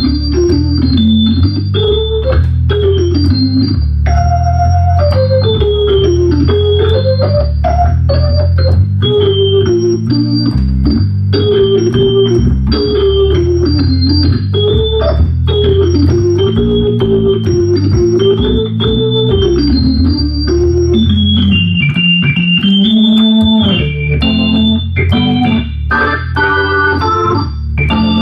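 Hammond B3 organ played on the 16' and 1' drawbars without percussion: a simple bass line under a right-hand melody, with the 1' drawbar ringing as a thin, high tone four octaves above each melody note. The bass drops out for a moment about two-thirds of the way through.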